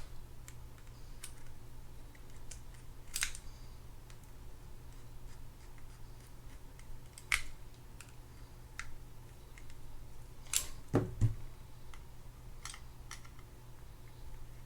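Sparse, irregular light clicks and taps of small metal spinning-reel parts and hand tools being handled and fitted, with a duller knock about eleven seconds in.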